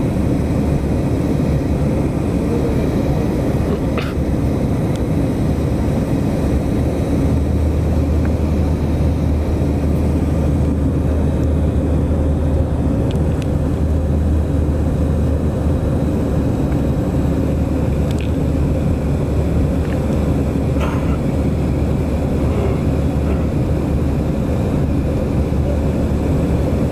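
Steady drone of an airliner's engines and rushing air, heard inside the passenger cabin, with a few faint ticks.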